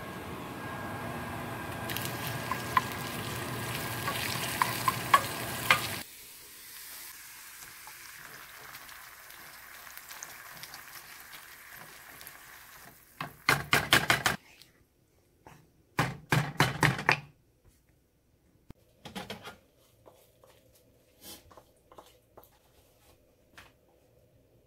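A steady hum with a wooden spoon clicking against a plastic cup, then canned sardines in tomato sauce sizzling softly in a frying pan. A wooden spoon stirs and scrapes the pan in three bursts of quick strokes, followed by a few faint light taps.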